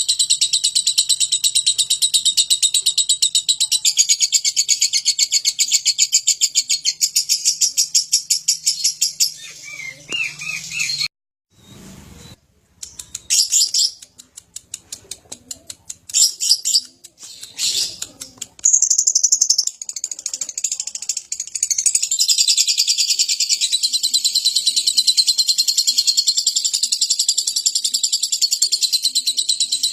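Lovebird singing its long, rapid, high-pitched chatter ("ngekek"). It stops about ten seconds in, leaving a brief near-silent gap with a few clicks. Short bursts follow, and from about nineteen seconds it runs on continuously again.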